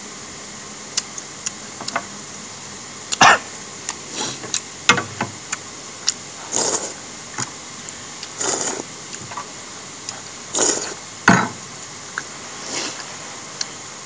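Close-up eating sounds: a man chewing and sucking on pork hock and slurping noodle soup, heard as a series of short slurps and smacks with small mouth clicks between them.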